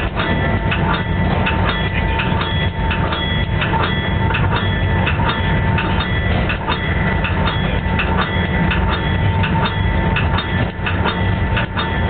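A GP38-2 locomotive's brass bell ringing continuously, its repeated strikes and steady ringing tones riding over the low rumble of the locomotive's EMD 16-cylinder diesel and its wheels running on the rails.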